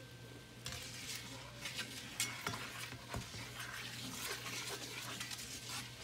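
Honey and cinnamon bubbling at a foaming boil in an enamelled cast-iron skillet, crackling and sizzling while a slotted spatula stirs and scrapes through it. There are a few sharper taps of the spatula against the pan.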